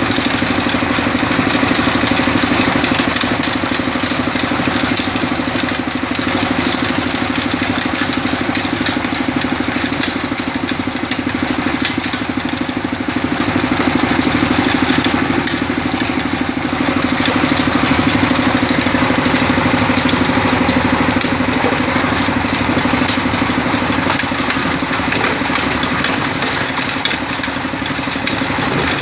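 Rock-crushing sand machine running steadily: a constant engine-like drone with a gritty rattle over it that swells and fades a little.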